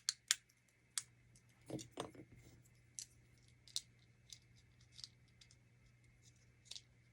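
Small snap-together model-kit pieces being handled and fitted together: scattered faint clicks and taps, with a slightly fuller knock about two seconds in.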